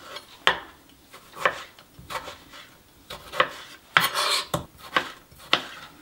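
Chef's knife slicing a tomato on a plastic cutting board: the blade cuts through the fruit and taps the board in an uneven series of sharp strokes, roughly one a second, with a longer stroke a little past the middle.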